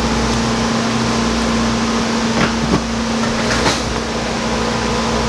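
A steady machine hum with a constant low tone, with a few short knocks about two and a half and three and a half seconds in.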